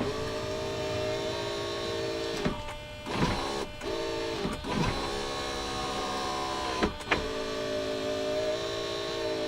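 Electric window motor in a Land Rover Discovery 2 rear door running with a steady whine. It runs four times, each for one to two seconds, with short breaks between.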